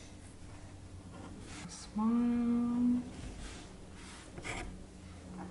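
A person hums one steady note for about a second, a couple of seconds in, over faint scratching of a marker and pencil drawing on paper.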